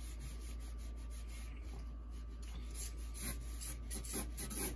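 Sharpie felt-tip marker drawing on a large sheet of drawing paper: soft, irregular scratchy strokes that get a little stronger about three seconds in, over a faint steady hum.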